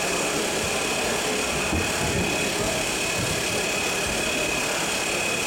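Radio-controlled scale model trucks running slowly, a steady engine-like hum with a thin, steady high whine.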